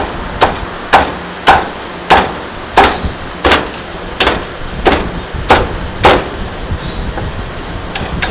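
Chinese cleaver chopping roast suckling pig on a thick round wooden chopping block: about eleven sharp, evenly paced chops, roughly one every two-thirds of a second, stopping about six seconds in, with one lighter chop near the end. A steady low background hum runs underneath.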